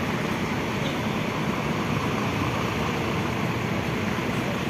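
Engine of a Sinar Jaya Suite Class intercity coach running steadily as the bus pulls out, under a constant noise haze.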